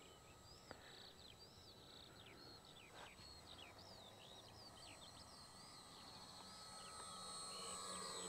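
Songbirds chirping, many short rising and falling whistles, faint against a quiet background. Near the end the faint hum of the RC model's twin electric motors grows louder as it passes close.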